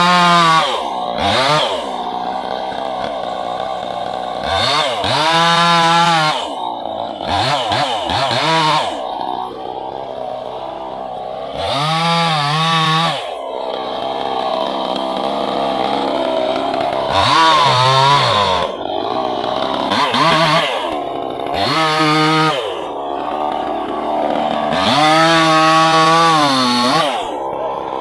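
Two-stroke chainsaw cutting wood, its engine revved up to full throttle and dropped back toward idle again and again, about eight times.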